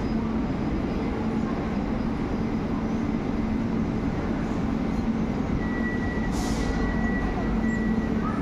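Lastochka electric train standing at the platform, its onboard equipment humming steadily. A short hiss comes about six seconds in, and a thin high tone sounds for a couple of seconds around the same time.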